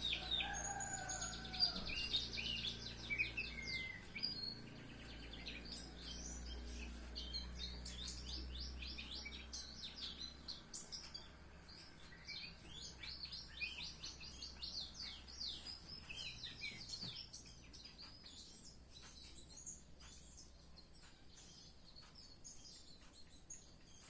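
Anis thrush (anis macan / anis ampenan) singing a long run of rapid, high warbling notes, fading to sparser, fainter notes after about 17 seconds.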